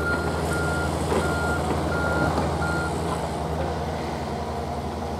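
Mini excavator's diesel engine running steadily under load, with its travel alarm beeping about twice a second; the beeping stops about three seconds in while the engine keeps running.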